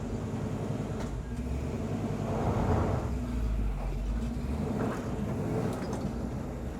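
A 383 stroker small-block V8 in a 1966 Chevy C10 running at low speed as the truck creeps onto a trailer, with a steady low rumble that swells for a couple of seconds around the middle as throttle is added.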